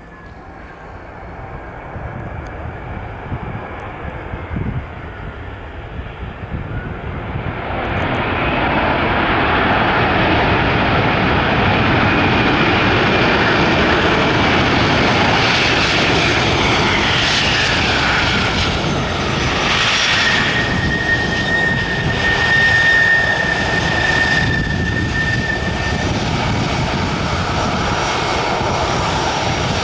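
Airbus A321 jet engines during its landing roll. The noise builds over the first several seconds and stays loud as the airliner rolls past on the runway. A whine falls in pitch, then holds a steady high tone for several seconds.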